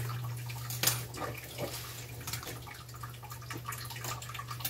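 Crab, string beans and squash in coconut milk simmering in a frying pan, with soft bubbling and scattered crackles over a steady low hum.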